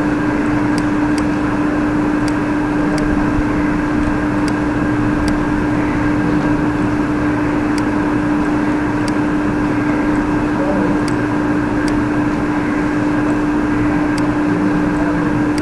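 Steady mechanical hum with a constant low tone, of the kind a fan or air conditioner makes near the microphone, with light ticks every second or so.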